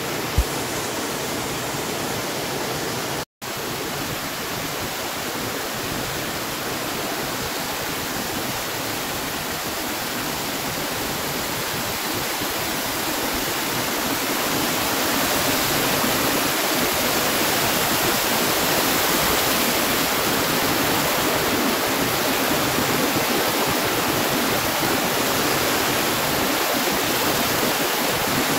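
Steady rush of flowing mountain water, growing a little louder about halfway through, with a split-second cut to silence about three seconds in.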